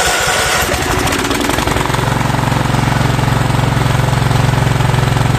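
Kohler engine on a Husqvarna riding mower just started after a carburetor cleaning: it runs unevenly at first, then about two seconds in settles into a steady, even run, showing it now stays running.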